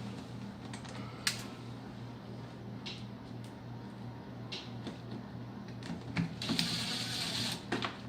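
Scattered clicks and knocks of screws and a plastic door panel being handled and fitted, with a short burst of impact-driver rattle near the end, over a steady low hum.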